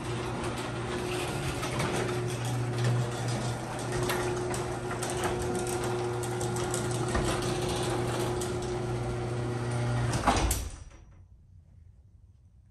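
Garage door closing under a motorised opener: a steady motor hum with rattling. It stops abruptly with a thump about ten and a half seconds in as the door shuts.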